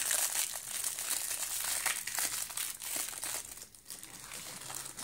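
Thin clear plastic bag wrapped around a car charger crinkling and crackling as it is turned in the hands, then softer plastic rustling after about three and a half seconds as a hand reaches among bagged accessories.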